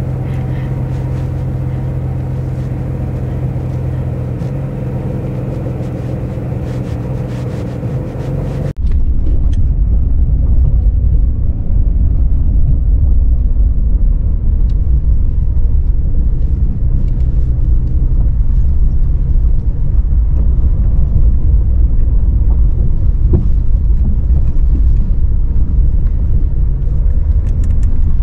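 Porsche 911 Dakar's twin-turbo flat-six running at a steady note while the car drives the quarry course. About nine seconds in, the sound switches suddenly to a louder, deep rumble of the car moving over rough ground.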